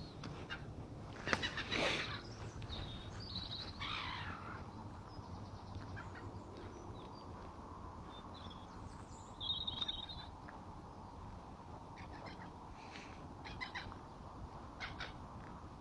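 Scattered bird chirps and calls over a steady low background noise, with one louder brief trill about ten seconds in.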